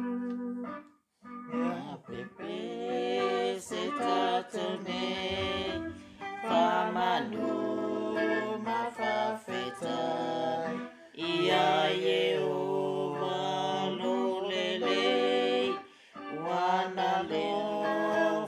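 A woman's voice singing a Samoan-language hymn in long, held notes, with an electric guitar playing along. The phrases are broken by short pauses, one about a second in.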